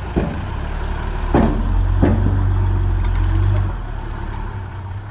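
Heavy diesel engine of earthmoving machinery running with a low, steady drone that grows louder for about two seconds in the middle. Three sharp clanks sound in the first half.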